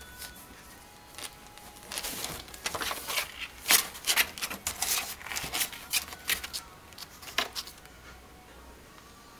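Rapid scratching and rustling against cardboard, a dense run of sharp scrapes and clicks starting about two seconds in, loudest near the middle, and dying away near the end.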